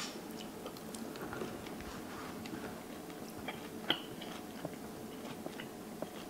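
A man chewing a mouthful of smoked beef roast, with many small wet clicks of the mouth over a steady low hum.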